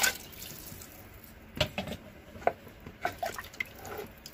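A wooden spatula stirring a thin, watery masala in a metal pressure cooker pot: liquid sloshing, with a few light, irregular knocks of the spatula against the pot.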